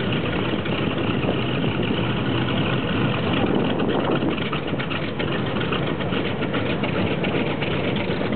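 North American B-25 Mitchell's Wright R-2600 twin-row radial engines idling just after start-up.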